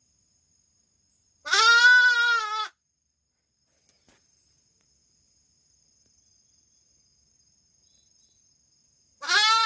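Lamb bleating for its ewe: one long, quavering bleat about a second and a half in, and another starting near the end. It is a separated lamb's distress call to its mother.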